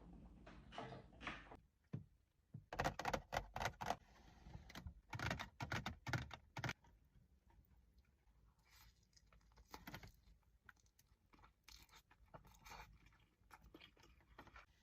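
Close-miked sushi eating: bites and wet, crackly chewing with sharp clicks. The sounds come loudest in two clusters in the first half and are softer and more scattered after.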